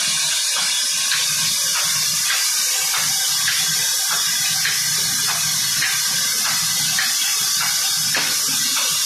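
Large flat-belt-driven band saw cutting timber: a steady high hiss of the blade through the wood over a low steady hum. A faint regular tick comes about twice a second.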